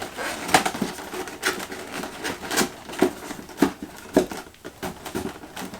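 Cardboard beam being folded and pushed into slots: an irregular run of sharp cracks and creaks, about one a second, over a light rustle.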